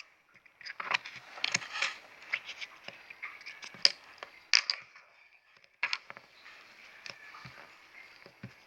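Hands working with play dough and its plastic packaging: scattered clicks, taps and crackly rustling, busier in the first half and fainter near the end.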